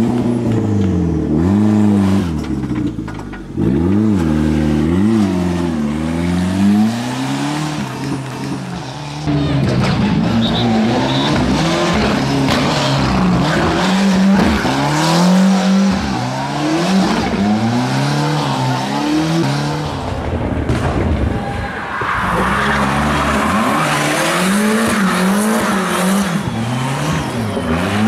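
Ford Sierra Cosworth Group A rally car's turbocharged Cosworth YB four-cylinder revved hard again and again, its pitch sweeping up and down. In the last several seconds tyre squeal joins the engine as the car spins its rear wheels in a donut.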